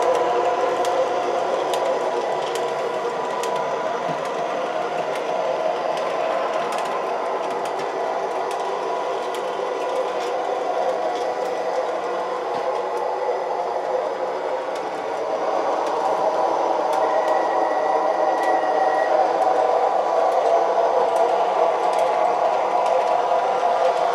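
MTH Proto-Sound 3 O-gauge PCC streetcar models running on three-rail track: a steady hum of motor, gears and wheels with scattered light clicks. It grows louder about two-thirds of the way through as a car comes nearer.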